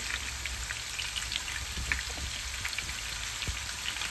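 Ribs frying in hot oil in a wok: a steady sizzle with many scattered small crackles and pops, over a low steady rumble.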